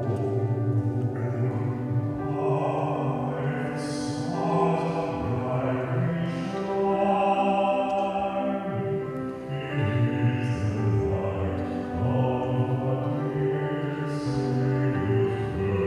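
Choir singing slow, sustained notes, with the hiss of sung consonants every few seconds.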